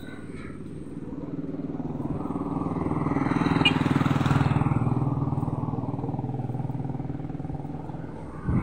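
A motor vehicle passes along the highway: its engine grows louder over about three seconds, peaks about four seconds in, then fades away. A short thump near the end.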